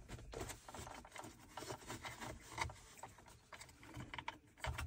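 Faint rubbing and small clicks of a charging cable being pulled and tucked against plastic console trim, with a couple of slightly louder knocks.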